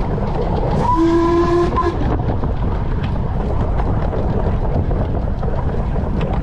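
Steam whistle of the 15-inch gauge locomotive River Mite giving one blast of about a second, about a second in. Under it runs the steady rumble and rattle of the train under way.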